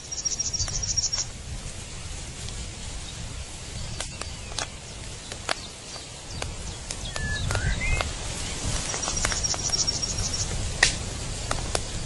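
Outdoor nature ambience: birds calling, with a high, rapid trill near the start and again near the end, and a short rising chirp about halfway. Scattered clicks and a steady low rumble run underneath.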